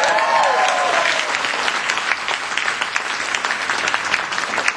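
Many people applauding, with raised voices over about the first second.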